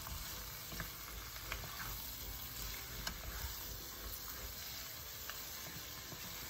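Pieces of raw pork belly sizzling steadily in hot oil in a frying pan as they are stirred with a wooden spatula, with a few faint light clicks of the spatula against the pan.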